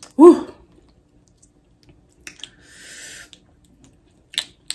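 A woman's loud falling 'woo' exclamation while eating spicy buttered prawns, followed about two seconds later by a second-long hissing sound and two sharp mouth clicks near the end.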